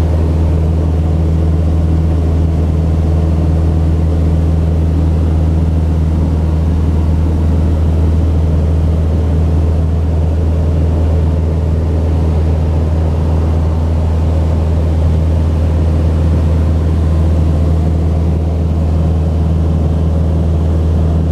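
Steady drone of a Mooney M20J's four-cylinder Lycoming IO-360 engine and propeller in flight, heard inside the cabin as a loud, deep, unchanging hum.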